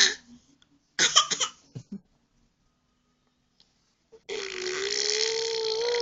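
A short, crackly cough about a second in. After a pause comes a long, drawn-out vocal sound held at a steady pitch.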